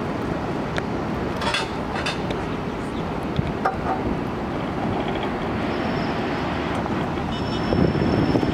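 Steady rumbling noise of jet airliners taxiing, mixed with wind buffeting the microphone; it swells a little near the end.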